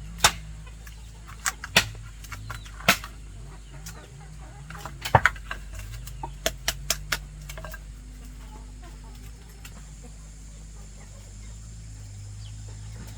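A chicken clucking, with a dozen or so sharp knocks in loose clusters over the first seven seconds or so.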